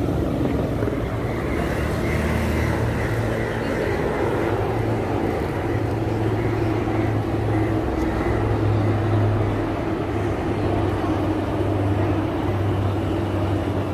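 Formation of helicopters flying over: a steady low engine and rotor drone that swells a little past the middle.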